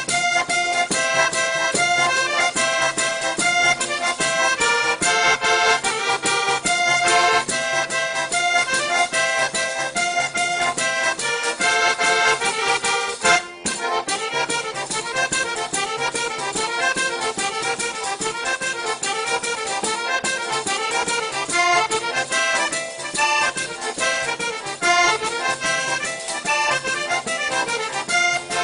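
Accordion playing a quick traditional folk tune, with a brief break about halfway through.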